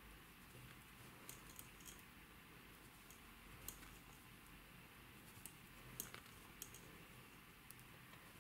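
Metal knitting needles clicking faintly and irregularly against each other as stitches are purled, over quiet room hiss.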